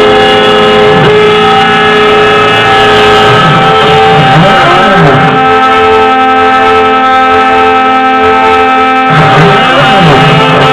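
Desktop CNC-3040AL milling machine cutting aluminium: a steady whine of several held tones, with the stepper motors' pitches sweeping down and up in crossing curves as the axes trace a curved path, about four seconds in and again near the end.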